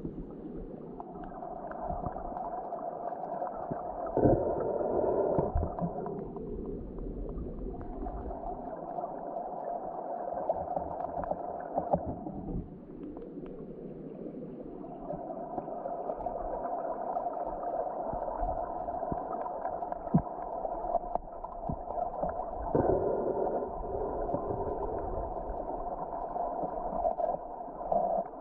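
Muffled rush of stream water heard underwater through a camera's waterproof housing, with a few knocks.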